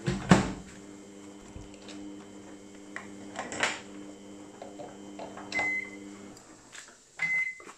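Steady electrical hum of a kitchen appliance that stops about six seconds in, followed by short high electronic beeps. A loud knock comes just after the start, with another click a few seconds later.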